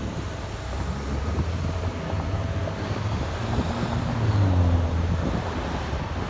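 Road traffic driving by, cars and trucks with a low engine and tyre rumble that swells about four seconds in as a vehicle passes close, with wind buffeting the microphone.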